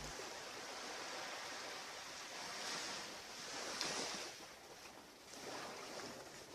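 Ocean surf washing onto a beach, a steady rush that swells louder about three to four seconds in and again near the end.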